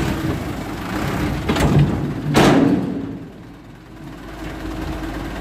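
Diesel engine of a light dump truck running as it creeps forward with its bed tipped, unloading soil. A loud, rough rush with a thud comes about two and a half seconds in, then it goes quieter.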